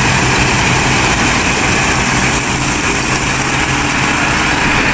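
New Holland 8080 combine harvester cutting wheat up close: a loud, steady diesel engine drone.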